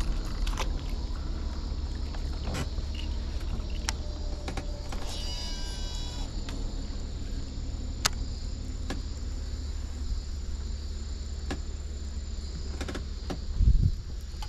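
Shimano Antares DC MD baitcasting reel giving its short electronic braking whine during a cast of a large swimbait, about five seconds in. Around it are a steady low rumble, scattered light clicks and a loud bump near the end.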